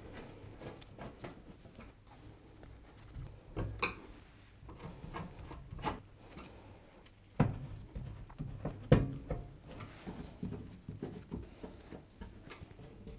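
Screwdriver driving screws into a washing machine's metal back panel: irregular small clicks, scrapes and rubbing of the gloved hand and tool, with two sharper knocks on the panel in the second half.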